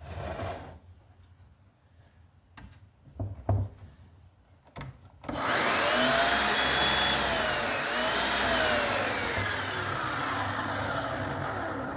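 A Craftsman cordless miter saw's motor and blade spin up suddenly about five seconds in, after a few light handling knocks. The whine holds, dips briefly and recovers, then falls steadily as the blade winds down.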